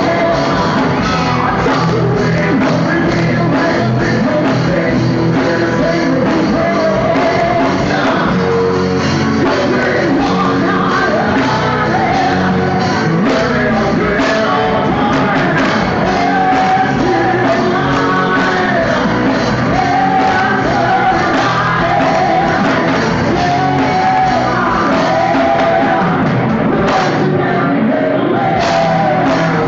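Live rock band playing loudly and without a break, with a woman singing lead into a microphone.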